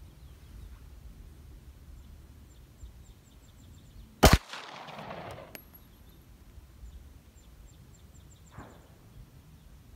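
A single shot from a 9mm Benelli MP3S pistol about four seconds in, followed by a short echo. A much fainter thud comes near the end.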